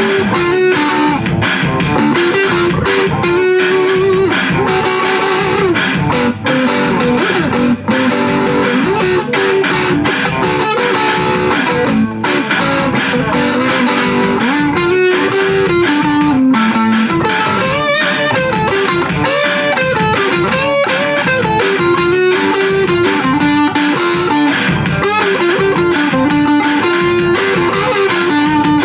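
Electric guitar played through a 1972 Sound City Mk4 valve amplifier: a continuous run of picked single-note melody lines stepping up and down, mixed with strummed chords.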